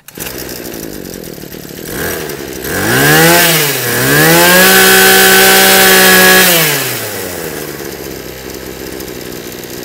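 Tanaka TCG24EASP 24cc two-stroke brush cutter engine idling, revved up and down once about three seconds in, then held at full throttle for about two seconds before dropping back to idle. It runs very smoothly.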